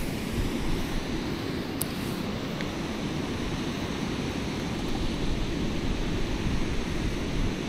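Steady rush of water pouring over a dam spillway, a continuous noise with a heavy low rumble.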